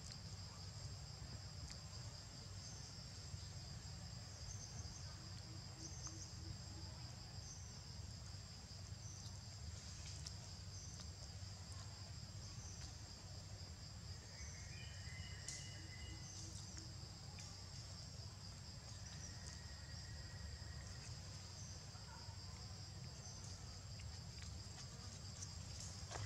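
Insect chorus in forest: a steady high-pitched drone with a slight pulse, over a low rumbling background noise. A few short chirps come about halfway through.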